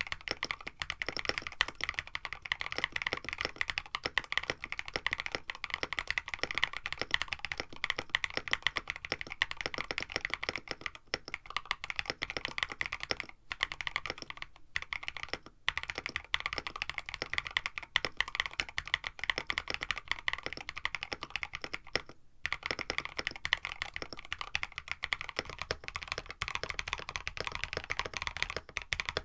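Steady, fast typing on a KBD67 Lite mechanical keyboard with an FR4 plate and lubed Dangkeebs Banana Milk long-pole switches, with a few brief pauses. Near the end the typing switches to lubed Boba LT switches.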